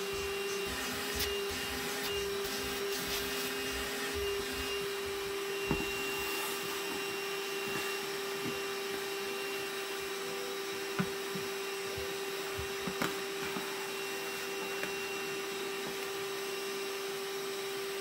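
Black+Decker cordless handheld vacuum running steadily through a long extension hose, sucking dust out of a wet/dry vac's plastic bin, with a few sharp knocks.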